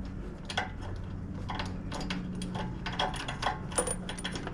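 Irregular light metallic clicks and clinks of a spark plug socket and wrench being handled on a spark plug of a Kawasaki V-twin mower engine. The clicks come more thickly in the second half, over a steady low hum.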